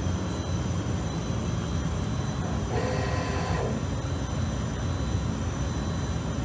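Industrial machinery running: a steady hum and rumble with thin high steady tones, and a brief pitched whine about three seconds in.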